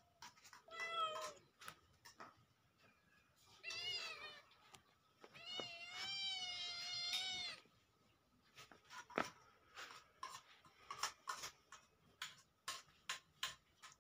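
Kitten meowing three times: two short meows, then a longer drawn-out one about two seconds long. Scattered faint clicks come in between.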